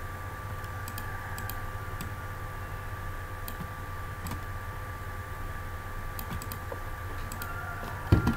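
Scattered sharp clicks from a computer mouse and keyboard over a steady low hum. A single dull thump, the loudest sound, comes near the end.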